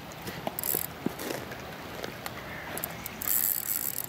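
Spinning reel being cranked on a lure retrieve, its gears whirring in spells: a short one about a second in and a longer one near the end.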